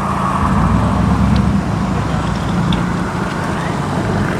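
Car engine running with a steady low note, holding its revs without revving up or down.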